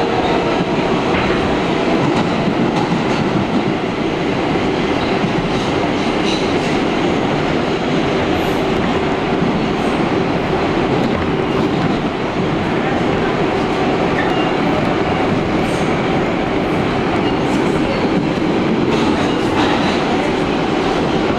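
R142A subway train running at speed through the tunnel, heard from inside the car: a steady, loud wheel-and-track noise with scattered faint clicks.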